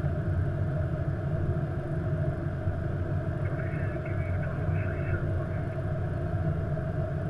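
Steady low rumble and hum inside the cockpit of an Airbus A330-200 as it rolls slowly onto its gate stand at the end of the taxi.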